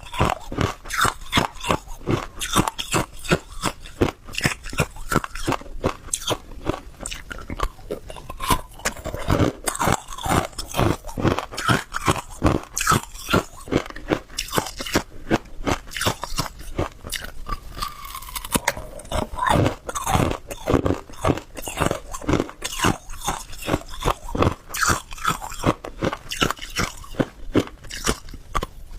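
Hard ice being bitten and chewed close to the microphone: a continuous run of sharp, brittle crunches, several a second.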